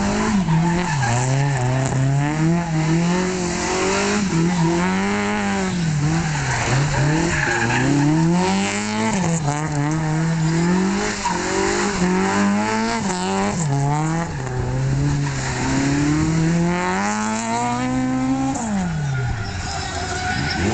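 Toyota AE86 drift car's engine revving up and down over and over through a drift, with its tyres squealing and skidding on the tarmac. Near the end the engine pitch climbs for a long stretch, drops sharply, then rises again.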